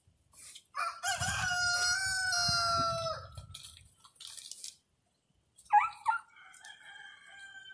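A rooster crowing twice: a long held crow of about two and a half seconds, then a second crow near the end, each opening with a quick rise before the long held note.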